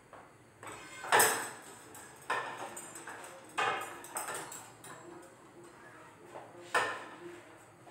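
Kitchen things being handled off to the side: about four sharp knocks and clatters of metal and dishes, each ringing on briefly, the loudest about a second in and another near the end.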